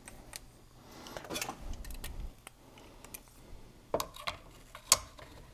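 Scattered small clicks and metallic taps of steel hemostats and fingers working at the fuel line between the tanks of a Husqvarna 550 XP chainsaw. A sharper knock comes about four seconds in and another about a second later.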